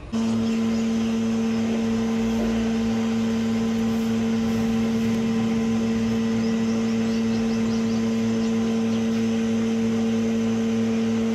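Steady machine hum at one constant pitch with overtones, unchanging throughout.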